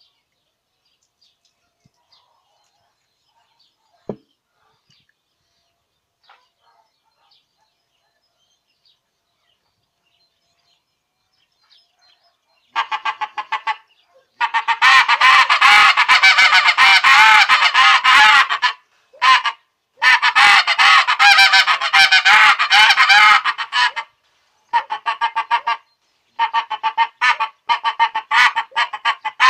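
Short-reed greylag goose call, with an acrylic horn and a Delrin barrel, blown while still wet from being filled with water. After a few faint clicks it starts about 13 seconds in and sounds loud, long runs of rapid honks with short pauses, with the reed not sticking.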